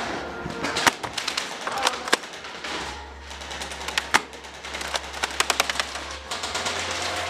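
Airsoft guns firing: sharp snapping shots here and there, then a quick burst of rapid shots about five seconds in.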